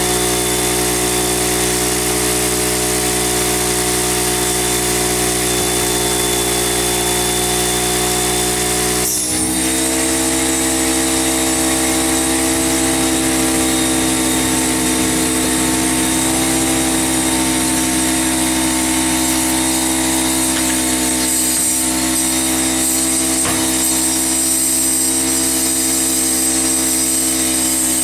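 Air compressor motor running steadily with a hum of several steady pitches while it feeds air into a lawn-tractor tyre through the valve stem, for seating the bead by igniting brake-cleaner vapour inside the tyre. About nine seconds in there is a short rush of noise as the vapour ignites, and the compressor's pitch shifts slightly afterwards.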